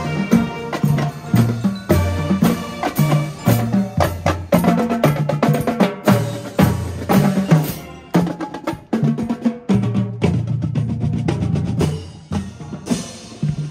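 High school marching band playing as it marches, with clarinets, saxophones and brass over a drumline of snare, tenor and bass drums. About eight seconds in the wind instruments fall back and the drums carry the beat almost alone.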